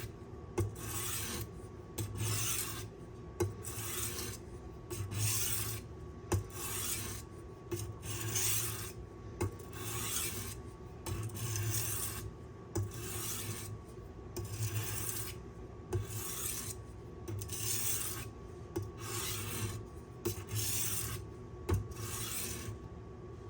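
Knife edge of W2 steel being stroked back and forth on a medium-grit aluminum oxide sharpening stone: a steady rhythm of gritty scraping strokes, a little faster than one a second, with light clicks as the blade changes direction.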